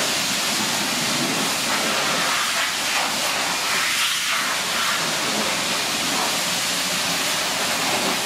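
High-pressure car wash wand spraying water onto a car: a steady hiss of spray that throws up a heavy mist.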